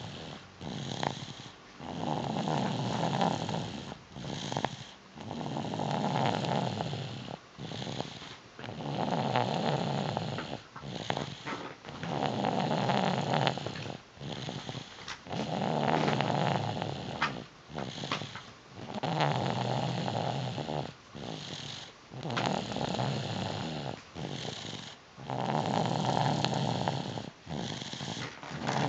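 Snoring, with long rasping snores of about two seconds each, repeating in a steady rhythm roughly every three to four seconds.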